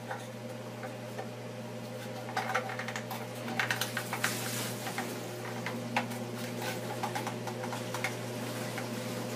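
Plywood adapter ring being worked into the opening of a plastic dust boot by hand: scattered clicks, knocks and short scraping sounds, busiest in the middle, over a steady low hum.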